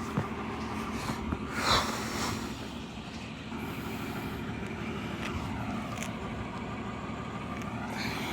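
1954 Chevrolet's straight-six engine and road noise on a drive: a steady drone, with a short louder noise about a second and a half in.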